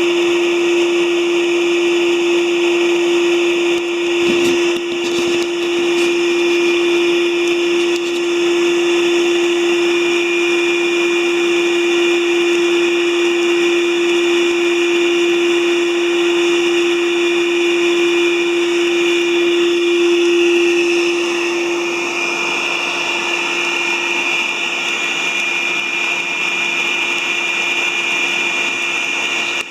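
Shop vac running steadily as the air blower for a charcoal forge, pushing air through a pipe into the coals: a loud, even motor hum over a rushing hiss of air. A few light knocks come about four to five seconds in.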